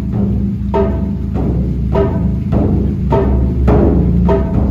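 Music: a struck, pitched percussion hit about every 1.2 seconds, each ringing briefly, over a steady low bass drone.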